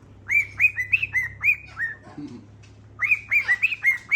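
Pet bird whistling two quick runs of short notes, each note rising and then falling in pitch, with a pause of about a second and a half between the runs. A faint steady hum sits underneath.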